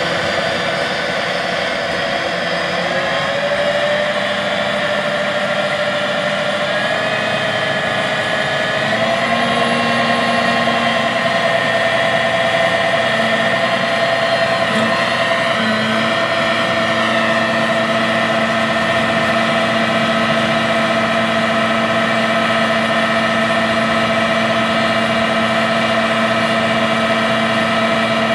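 John Deere 9470R articulated four-wheel-drive tractor's six-cylinder diesel engine running steadily. Its pitch rises a few seconds in and again about nine seconds in as the revs pick up.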